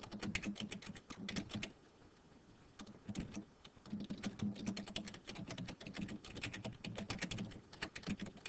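Typing on a computer keyboard: quick runs of key clicks, with a pause of about a second partway through.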